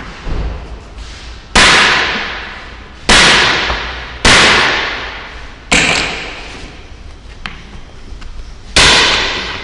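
Five sharp, loud cracks of a bare hand striking and breaking stones, each trailing off over about a second.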